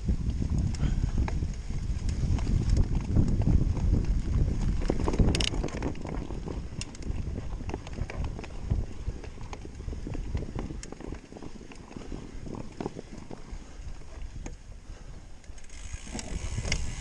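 Mountain bike ridden over rough ground: a steady rumble of tyres with the rattle and knock of the bike's parts, loudest in the first six seconds, with a sharp clack about five seconds in.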